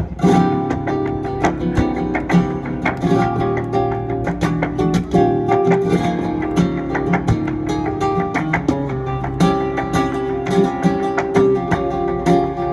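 Live flamenco music: a strummed acoustic guitar with sharp percussive clicks running through it, starting with a strong chord.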